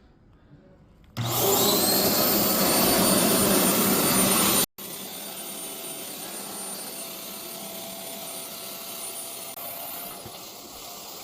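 Electric air pump running steadily and blowing air into the air tent's inflatable beams. It starts with a quick rising whine about a second in. A few seconds later it drops abruptly to a quieter level and keeps running.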